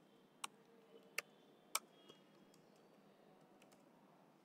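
A few separate computer keyboard keystrokes: three sharp clicks in the first two seconds, then only a couple of faint ticks over quiet room tone.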